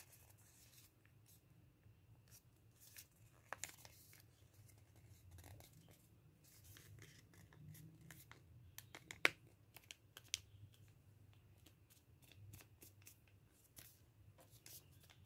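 Sheet of lined notebook paper being folded and creased by hand: soft rustling with scattered crisp crinkles, the loudest two sharp snaps a little past halfway.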